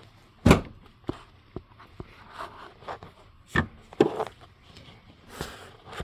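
Scattered knocks, clunks and short scrapes of someone moving about and handling things, irregular rather than rhythmic, with the loudest thump about half a second in.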